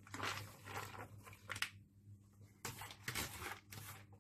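Chopped onions, green bell pepper and greens tipped into a mixing bowl, rustling and scraping as they slide in and settle against the whisk, in several short spells.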